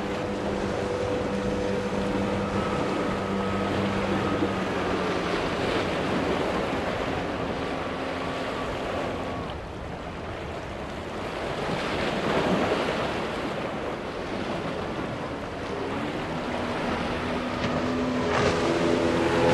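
Single outboard motors running at speed on small boats, with spray and water hissing against the hulls and wind on the microphone. A Boston Whaler's Mercury 150 holds a steady tone for the first few seconds and then fades. A SeaPro's Mercury 135 comes in over the last few seconds.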